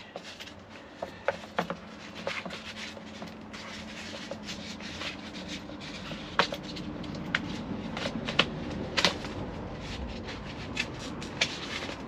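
Handling sounds of unpacking: a foam insert being lifted out of a cardboard box and cables taken out, with rubbing and scattered light clicks and taps, the sharpest a few near the middle.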